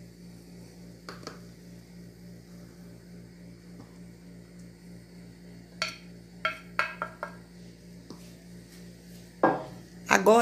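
A few knocks and clinks against an aluminium pot as flour is tipped in from a glass bowl and stirred with a wooden spoon, mostly bunched together past the middle with one louder knock near the end, over a steady low hum.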